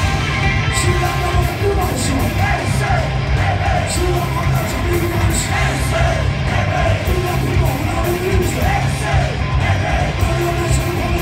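Punk rock band playing live at full volume: electric guitars, bass guitar and drums, with shouted vocals.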